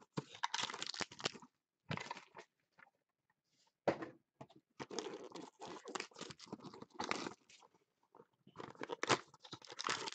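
A 2016 Panini Prime Signatures cardboard card box being torn open and its foil-wrapped pack crinkling as it is handled. The crackling and tearing come in irregular bursts with short pauses between them.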